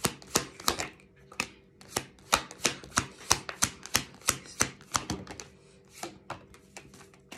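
A tarot deck being shuffled by hand, with packets of cards snapping against each other in sharp clicks about three times a second. The clicks thin out and stop about a second before the end.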